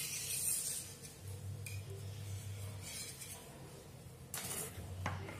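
A metal utensil scraping and clinking against a metal baking pan as it is run around the edge of set halwa to loosen it for demoulding, with scattered light clinks and one louder knock of the pan near the end.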